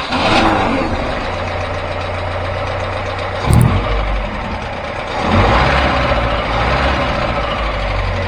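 A vehicle engine running steadily at idle, with a short loud thump about three and a half seconds in and the sound swelling a little about five seconds in.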